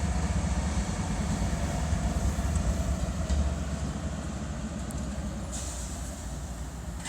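GE diesel locomotives of a CSX freight train, an ES40DC leading two AC4400CWs, running by with a heavy low rumble that gradually fades over the last few seconds.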